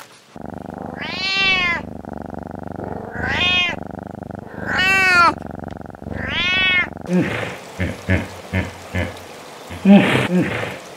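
A cat meowing four times, each meow rising then falling in pitch, over a steady background hum. Then a hippopotamus gives a rapid series of short grunting calls, about three a second, the loudest near the end.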